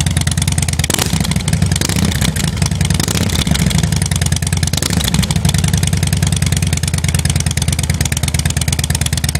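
2009 Harley-Davidson Heritage Softail's air-cooled V-twin running steadily through Rush slip-on mufflers with 1.75-inch baffles, a deep, even exhaust pulse.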